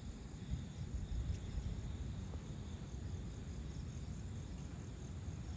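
Crickets chirring steadily in an evening insect chorus, over a low, steady rumble.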